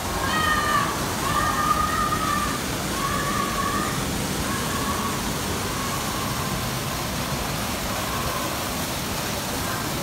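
Steady rush of a waterfall pouring into a pond. A run of high held tones sounds over it, strongest in the first four seconds and fading after.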